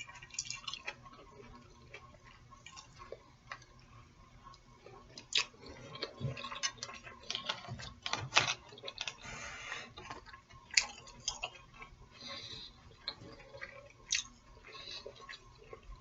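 Eating sounds: chewing with irregular wet mouth clicks and smacks, and a few sharper clicks scattered through.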